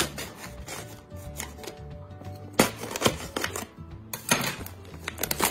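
Plastic film on a tray of mussels being cut and torn open with a knife: irregular crackly scrapes and sharp clicks, the loudest about two and a half seconds in. Background music plays underneath.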